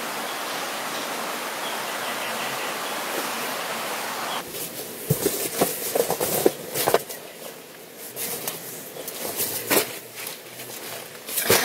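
A steady outdoor hiss, which breaks off about four and a half seconds in. It gives way to close rustling and scattered soft knocks and scuffs as a person crawls across a foam sleeping mat.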